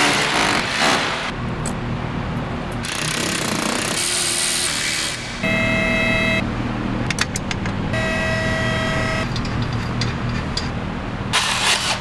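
Cordless hammer drill drilling into a concrete block wall, followed by several shorter power-tool runs. Two of those runs, each about a second long, carry a steady motor whine.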